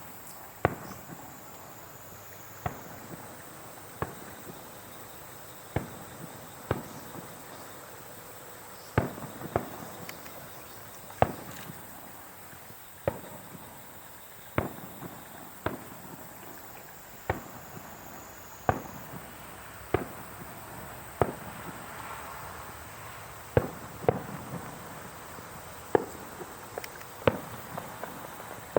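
Fireworks going off in a steady run, a sharp bang every second or two, about twenty in all.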